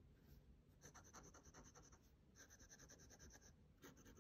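Steel nib of a vintage Esterbrook J fountain pen scratching across paper, faint, in short runs of quick back-and-forth strokes. The scratchy sound is the sign of a nib with a lot of feedback, scratchy rather than smooth.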